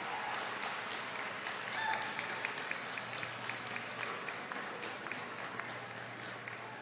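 Audience applauding, a dense patter of handclaps that swells about two seconds in and then slowly tapers off.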